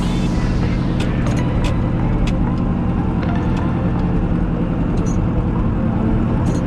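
Tractor engine running steadily at an even speed, with a few short metallic knocks or clanks over it.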